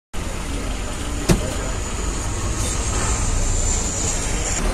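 Moving bus heard from inside the cabin: steady engine and road rumble. A sharp knock comes about a second in, and a faint high whine runs until it cuts off near the end.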